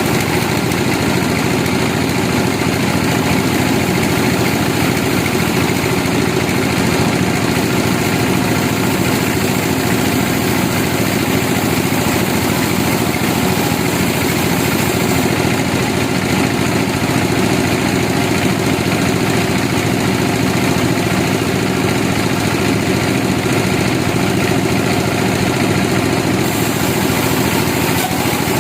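Sawmill engine running steadily at an even speed, unchanged throughout.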